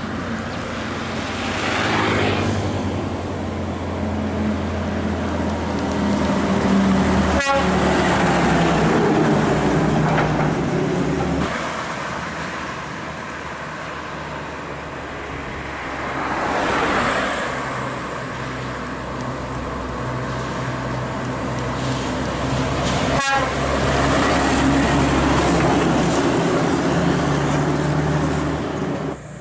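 Heavy diesel trucks labouring up a hill, engines droning steadily, with the noise swelling as vehicles pass about two seconds in and again past the middle. Two short sharp clicks cut through, one about a quarter of the way in and one past the three-quarter mark.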